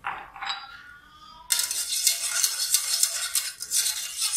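A utensil stirring rapidly in an aluminium saucepan of milk, a fast scraping rattle against the metal that starts about a second and a half in.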